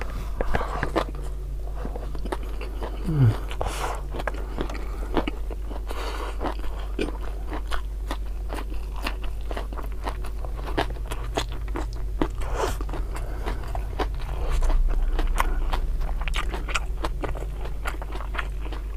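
Close-miked chewing and crunching of raw lalapan vegetables such as petai beans, with rice eaten by hand: irregular wet mouth clicks and crisp crunches. A brief low hum falls in pitch about three seconds in.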